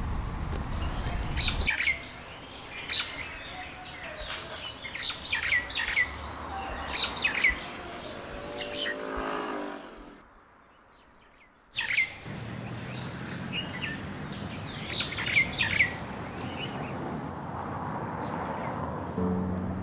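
Street ambience of birds chirping, many short high chirps over a low steady hum of traffic, with a heavier vehicle rumble in the first couple of seconds. About ten seconds in the sound drops to near silence for under two seconds, then the chirping and hum come back.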